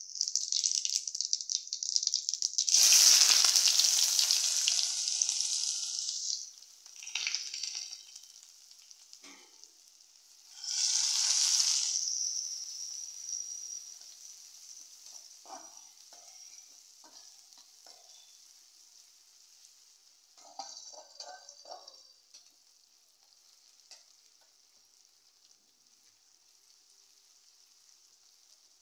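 Hot oil sizzling in a metal kadhai. It flares up loudly twice, about three seconds in and again around eleven seconds, as ingredients are dropped in, then dies down to a faint steady sizzle while a metal spatula scrapes and stirs the pan.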